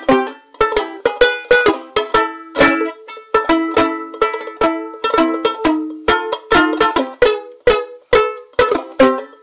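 Michigan soprano banjo ukulele strummed in a steady rhythm of chords. Each stroke is bright and dies away quickly, about two or three strums a second.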